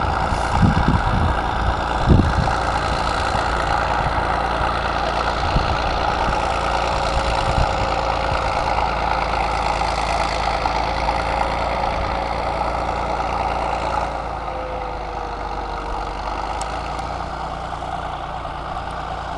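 International Harvester TD-24 crawler dozer's diesel engine running steadily as the machine pushes snow, with a steady whine that falls slightly in pitch a few seconds before the end. A couple of low thumps come about two seconds in, and the sound grows a little quieter over the last few seconds as the dozer moves away.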